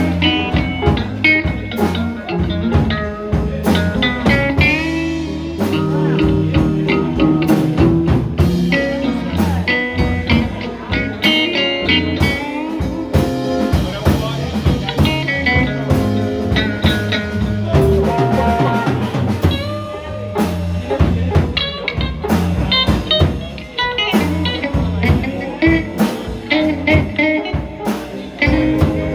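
Blues band playing an instrumental section: an electric guitar solos with bent notes over a drum kit.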